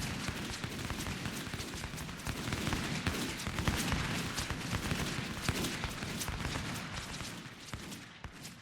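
Battle sound effect: many gunshots fired in a rapid, overlapping volley over a continuous rumble, fading out near the end.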